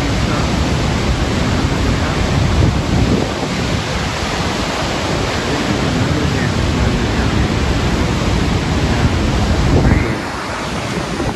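Water released from Buffalo Bill Dam rushing out at the base of the dam into the Shoshone River canyon below, a steady heavy rush with wind buffeting the microphone; the release is high because the reservoir is full after heavy rain. The low rumble drops away about ten seconds in.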